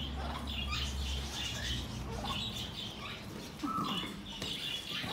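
Green-cheeked conures chirping: a steady scatter of short, high chirps and squeaks, with a lower sliding call a little past halfway.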